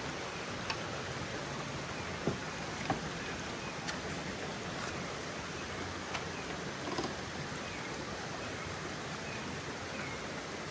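Steady hiss of water, with a few faint clicks and knocks scattered through.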